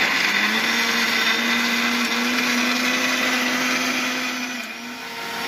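Electric mixer grinder switched on and running, its motor giving a steady whine as it grinds chopped onions into a paste; the tone changes and dips briefly about five seconds in.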